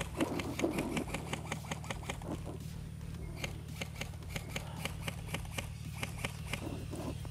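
Scattered sharp clicks and snaps of airsoft guns firing across the field, some in quick runs of shots, over a steady low hum.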